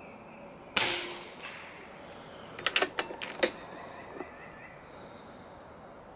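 FX Bobcat .30 calibre PCP air rifle firing once, a sudden loud report about a second in that dies away quickly. About two seconds later comes a quick run of sharp mechanical clicks, then a single click.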